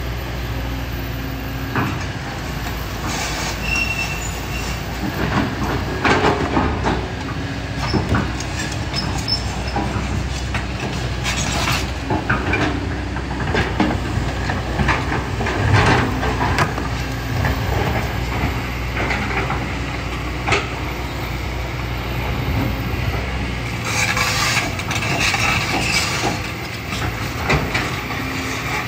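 Kobelco SK200 excavator's diesel engine running steadily under load. Frequent scraping, clanking and knocks run over it as the bucket works through sand, gravel and rocks.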